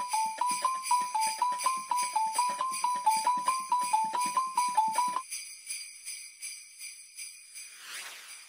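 Sleigh bells jingling in a steady rhythm under a simple tune of short, quick notes. The tune stops about five seconds in, the bells fade out after it, and a short whoosh sounds near the end.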